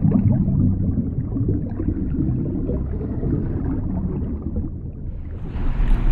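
Underwater thruster sound effect: a low rumbling water-churn as the armored suit's jets drive it through the water, with a brighter rushing hiss swelling in about five and a half seconds in.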